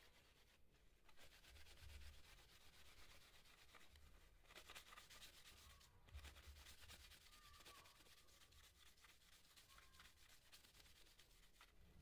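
Paper tissue rubbing over a remote control's circuit board in faint, quick back-and-forth strokes with a few brief pauses, wiping the keypad contact pads clean.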